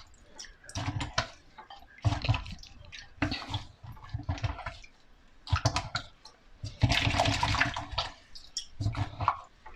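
Standing water sloshing and gurgling in the sump of a Bosch 800 series dishwasher as it is scooped out by hand, in irregular bursts; the loudest and longest comes about seven seconds in. The water is standing because the drain is blocked and not letting it through.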